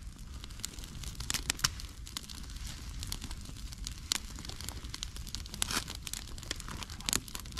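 Campfire of sticks and green twigs crackling, with irregular sharp pops and snaps over a low steady rumble.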